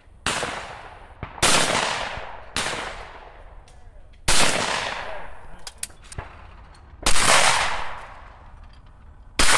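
Shotgun shots at clay targets: six sharp reports at uneven gaps, some louder than others, each followed by a long fading echo.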